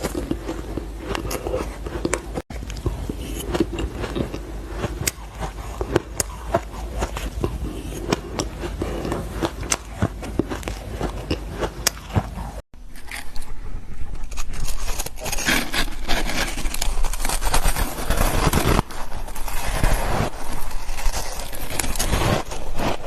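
Close-up crunching and chewing of powdery frozen ice, a dense run of crisp crackles and scraping crunches. It breaks off briefly twice, about two and a half seconds and about twelve and a half seconds in, and is denser and louder after the second break.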